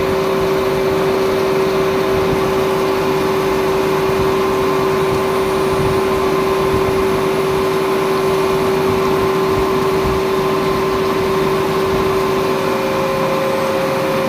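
Thread grinding machine running, its narrow abrasive wheel grinding a thread into a steel shaft: a loud steady hum with a higher whine above it over a constant grinding hiss.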